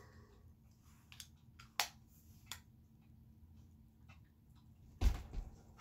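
Faint clicks and handling of a metered-dose asthma inhaler, used straight in the mouth without a spacer, with a louder, deeper thump about five seconds in.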